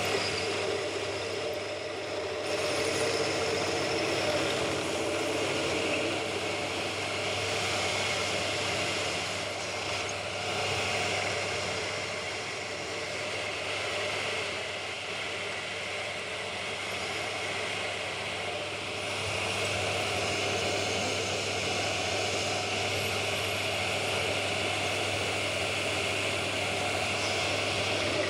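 Pillar drill running steadily with a steady low hum, a small end mill in its chuck cutting a Woodruff key slot into a metal shaft.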